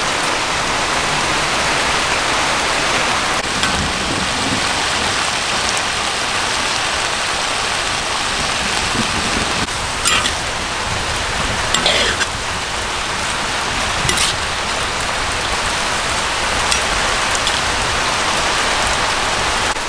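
Water spinach stir-frying in a large wok: a steady sizzling hiss, with a few sharp clinks and scrapes from the metal ladle around the middle.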